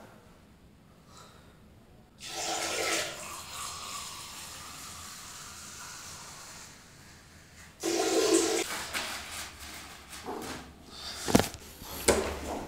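A urine stream into a toilet for a specimen, starting about two seconds in, then a toilet flush just before eight seconds that rushes and fades. A couple of sharp knocks near the end.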